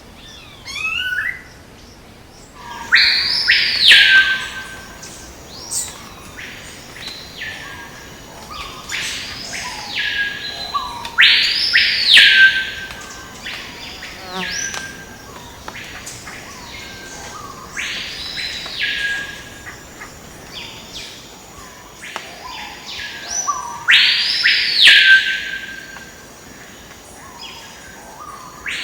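A bird calling again and again with loud, high, arching calls that rise and fall, one every few seconds, over a faint steady insect buzz.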